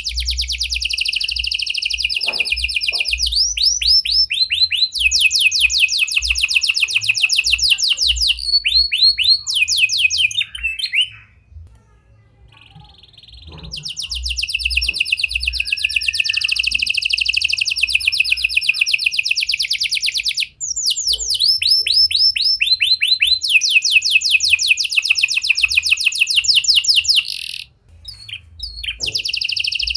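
Red-factor canary singing: long runs of very fast, rattling trills and rolls, high-pitched, with the song breaking off for about two seconds about a third of the way in and again briefly near the end. The song carries phrases in the style of prinia (prenjak) and lovebird calls.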